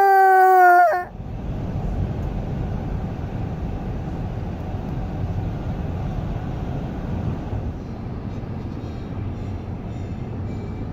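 A young child's high, wailing cry that cuts off about a second in, followed by a steady low rumbling noise.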